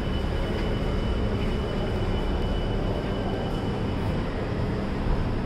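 Steady low rumble and hum of an enclosed underground car park, with a faint thin high whine that fades out about four seconds in.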